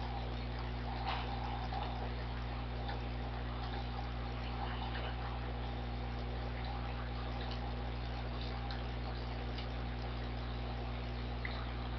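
Steady low electrical hum and hiss from the recording microphone, with a few faint scattered mouse clicks as pen-tool points are placed.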